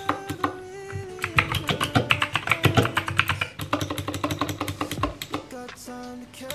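Fast typing on a backlit mechanical keyboard: a dense run of quick clicking keystrokes. Background music with plucked guitar notes plays along.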